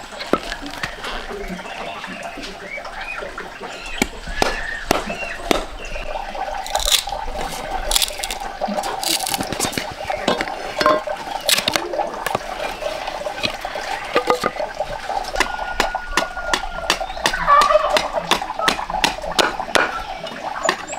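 Machete blade striking and shaving a bamboo pole as it is split and trimmed: irregular sharp knocks and scrapes, coming thicker near the end, over a steady background noise.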